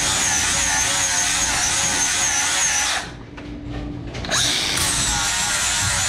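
Angle grinder with a 40-grit flap disc grinding weld off a metal bearing assembly held in a vise: a steady high whine that wavers in pitch. It cuts out for about a second halfway through and then starts again.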